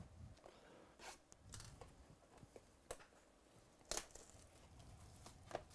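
Faint handling of a 2018 Panini Elements Football hobby box as it is opened, with soft rustling and a few sharp clicks, the loudest about four seconds in.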